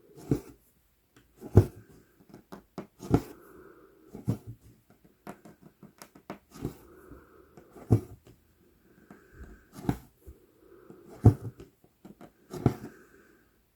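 Cross-stitching on Aida cloth: the needle pops through the fabric about every second and a half, and between pops the embroidery floss swishes as it is drawn through the holes.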